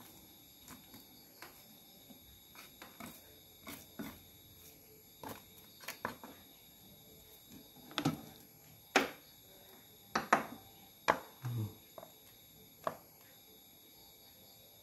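Irregular clicks, taps and short scrapes of a screwdriver against the plastic base of a rice cooker as caked dirt and dead insects are picked out. The clicks are loudest and most frequent about halfway through.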